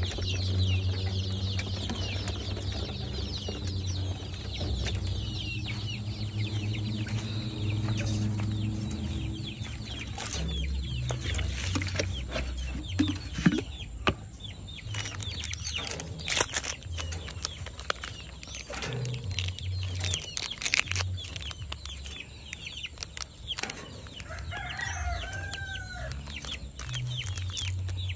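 A brood of young KUB native chickens peeping constantly with quick, high, falling cheeps. Several sharp knocks and clatters come in the middle.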